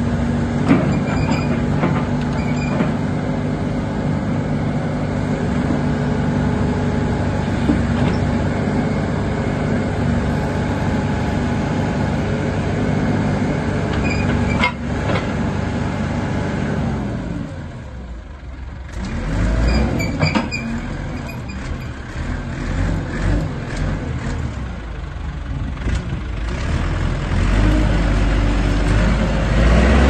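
Fermec 860 backhoe loader's diesel engine running steadily while the hydraulic backhoe arm is worked. The engine note dips and wavers for a few seconds past the middle, then comes back heavier near the end.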